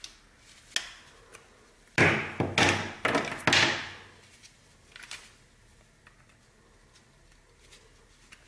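Handling noise from gloved hands picking up and shifting a plastic charger and its cord: a click a little under a second in, then a burst of clattering knocks and rustling for about two seconds in the middle, and a few light clicks after.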